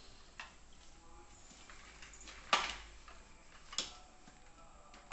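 A few sharp clicks and knocks as a baby in a plastic walker handles a plastic vegetable rack: three separate knocks, the loudest about halfway through.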